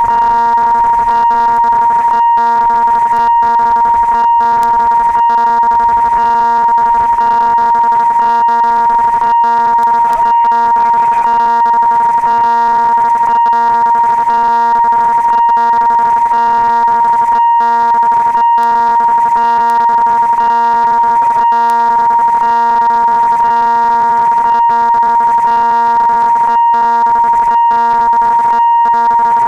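Railway level-crossing warning signal sounding a loud, steady electronic tone with several overtones and no break, warning that a train is approaching.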